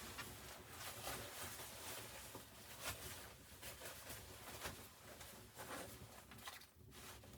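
Faint steady hiss with scattered small clicks and crackles at irregular intervals.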